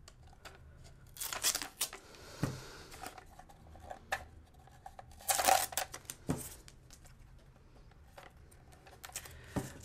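Fluorescent blue cloth tape being peeled off an airsoft rifle's magazine and pistol grip, in a few short ripping bursts, the loudest about halfway through. Between them come a few light knocks as the plastic rifle and magazine are handled.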